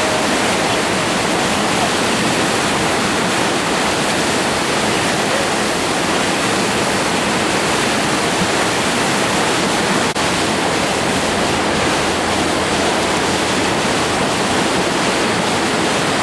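Whitewater rapids rushing: a loud, steady sound of fast-moving water, broken only by a brief dip about ten seconds in.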